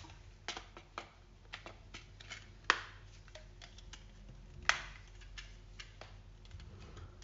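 Hard plastic parts of an indoor TV antenna and its stand being handled and fitted together: scattered light clicks and taps, with two sharper clacks, the first a little under three seconds in and the second about two seconds later.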